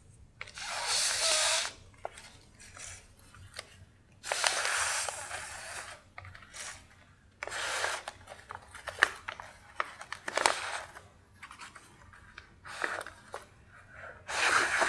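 Breath blown in about five separate puffs into the hole of a folded paper water bomb to inflate it. Between the puffs, the paper crinkles and rustles in small clicks.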